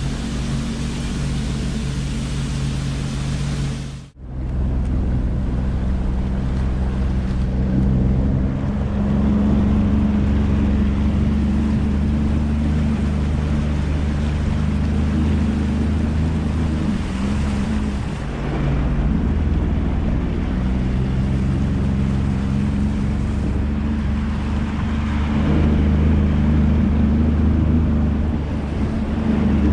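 Jet ski engine running while cruising, with rushing water and wind noise. There is a brief break about four seconds in, and the engine note rises and eases a few times.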